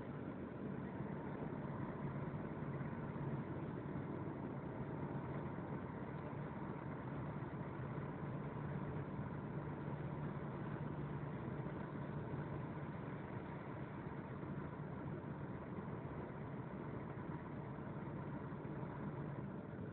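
Steady engine drone and tyre noise inside a vehicle's cab while it drives on a snow-covered motorway, with a constant low hum running under it.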